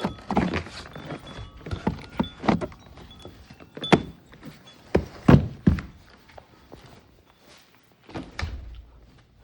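A series of irregular knocks and thumps of a door and of handling, the loudest a few strokes about five seconds in, with another thump near the end.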